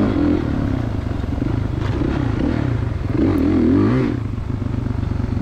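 2016 Kawasaki KX450 motocross bike's single-cylinder four-stroke engine running. Its pitch rises and falls with the throttle, then settles to a lower, even putter about four seconds in.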